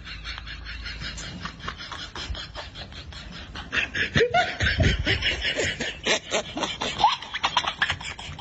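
Quick, breathy snickering laughter that grows louder about four seconds in.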